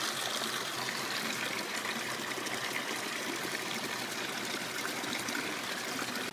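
Mixed calf milk replacer pumped out through a hose nozzle, pouring in a steady stream and splashing into a plastic bucket partly full of milk.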